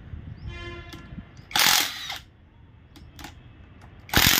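Cordless impact wrench running in two short bursts about two and a half seconds apart, loosening connecting rod cap bolts on an engine being stripped down. A brief whine comes just before the first burst.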